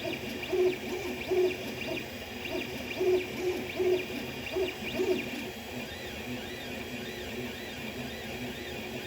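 Creality CR-10 3D printer's stepper motors whining in short, uneven pitched tones as the print head moves, the pitch rising and falling with each move, over the printer's steady fan hum.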